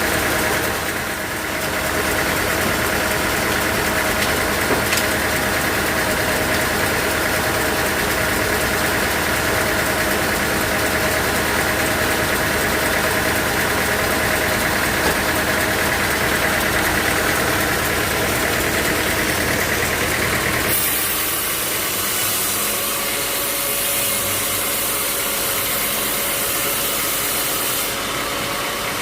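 Engine-driven machinery running steadily with a constant hum. About two-thirds of the way through the low rumble falls away and a high hiss comes in for several seconds.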